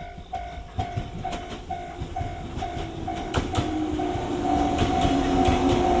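Level crossing warning bell ringing in a steady beat of about two strokes a second as a JR 115 series electric train passes; from about three seconds in, its wheels clack over the rail joints and the train gets louder.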